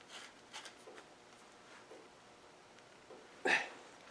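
Faint scattered clicks of tools and parts being handled on a workbench, with one louder knock about three and a half seconds in.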